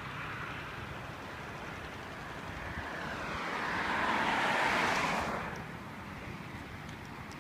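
A car passing on the street. Its tyre and road noise rises over a couple of seconds, peaks a little past the middle and then fades away.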